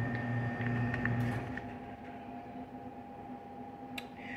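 Steady electrical hum from a kitchen appliance. Its lower, louder part stops about a second and a half in, leaving a fainter hum, and there is a single click near the end.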